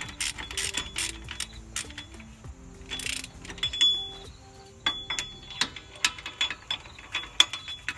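Hand ratchet clicking in short, irregular runs as the bolts of a wheel hub bearing assembly are tightened, with a brief scraping burst about three seconds in.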